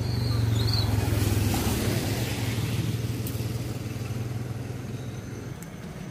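A motor vehicle's engine running with tyre and road noise, loudest in the first couple of seconds and then fading away.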